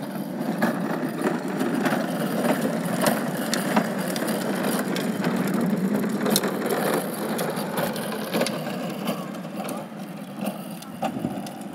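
Hard wagon wheels rolling on a concrete sidewalk: a steady rumble with rattling and sharp clicks from a red child's wagon and a plastic garden cart towed behind it, easing off near the end.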